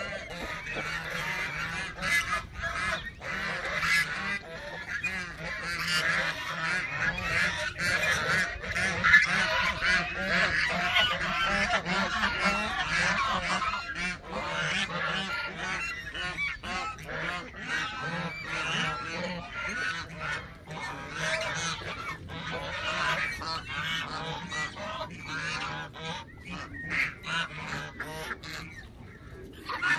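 A flock of Canada geese honking continuously, many calls overlapping, thinning out a little near the end.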